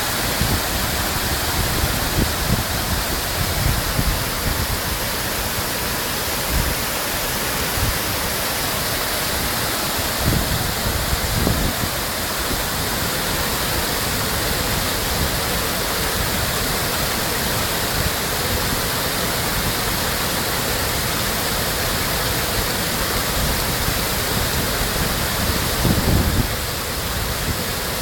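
Water falling steadily down an artificial cascade, a dense, unbroken rush. A few brief low rumbles rise out of it, around ten seconds in and again near the end.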